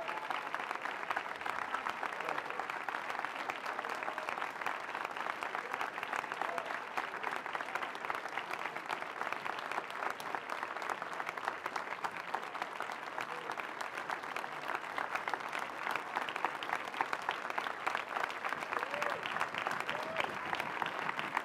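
A large crowd applauding steadily, dense clapping that keeps up without a break.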